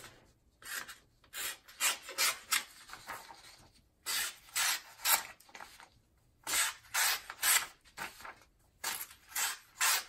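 Victorinox Tinker pocket knife blade slicing through a sheet of printer paper: a string of short, crisp paper-cutting swishes, two or three a second, in runs with brief pauses. It is a paper test of the edge, which slices well, though the owner suspects a small burr on it.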